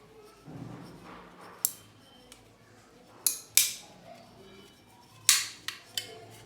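Sharp metallic clacks from handling the metal wall-mounting bracket of a split-system air conditioner's indoor unit: one about one and a half seconds in, a close pair near the middle, and one more near the end, over a faint low hum.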